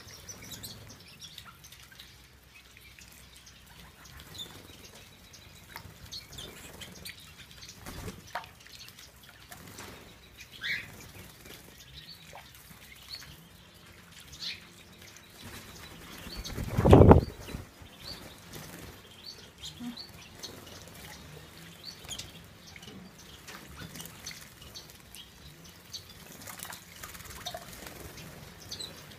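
Small aviary birds bathing in a shallow dish of water: splashing and fluttering wings, with scattered short chirps. Just past halfway comes a much louder rush of noise lasting about a second.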